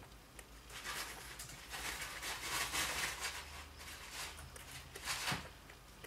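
A degu chewing and shifting about in a nest of shredded tissue paper: irregular soft rustles and crackles, busiest in the middle, with a sharper one near the end.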